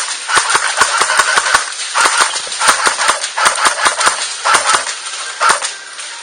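Airsoft guns firing in repeated rapid bursts, about five strings of quick sharp clicking shots with short pauses between them.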